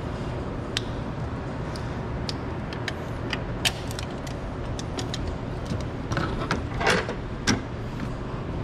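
Small metallic clicks and scrapes of pliers working a hose clamp on a rubber lower radiator hose, with a longer scraping rustle about six to seven seconds in, over a steady low hum.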